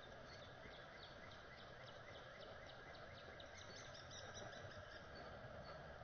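Faint outdoor ambience with wild birds singing in the distance: a quick run of short, high chirps repeating a few times a second over a steady hiss.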